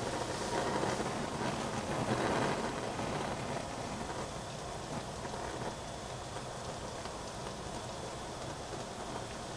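Covered pots heating on a lit gas stove: a steady hiss, a little louder for the first couple of seconds and then even.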